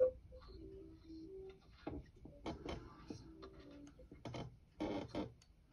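Faint scattered clicks, taps and rustles of small objects being handled and set down, with a sharper click at the start.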